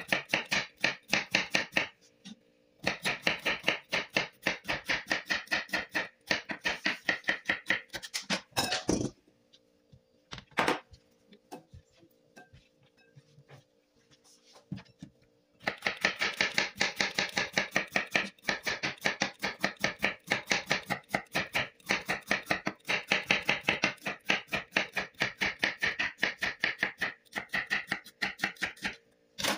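Kitchen knife slicing bitter gourd thinly on a plastic cutting board: quick, even knocks of the blade on the board, several a second, in long runs. The chopping stops for about six seconds in the middle, broken only by a couple of single knocks, then starts again.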